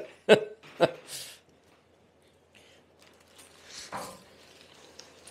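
Faint handling of a Lambretta scooter frame and its spring-loaded centre stand as the stand is pushed down, with one short scrape about four seconds in.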